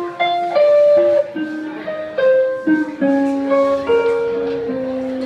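Guitar playing a slow blues lead line, one note at a time. Some notes are held and some slide into the next, with no drums underneath.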